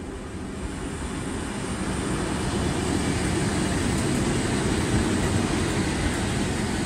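A pair of Class 90 electric locomotives passing with a container freight train. The rumble of the locomotives and their wheels on the rails grows louder over the first two seconds or so as they come level, then holds steady as the container wagons follow.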